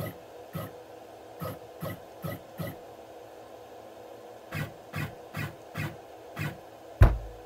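Genmitsu ProverXL desktop CNC router's stepper motors making a series of short jog moves, each a brief burst, about a dozen in two runs, over a steady hum, as an axis is jogged from the handheld offline controller during a test of the repaired machine. One louder thump comes about seven seconds in.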